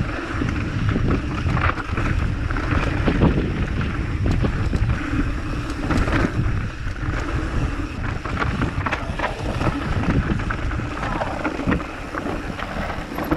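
Wind rumbling on the microphone over a steady rushing noise, with a few faint knocks.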